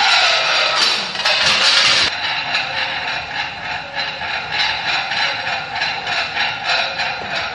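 Percussive rattling in a steady rhythm of about three short strokes a second, like a shaker or rattle. It follows about two seconds of louder, dense noise.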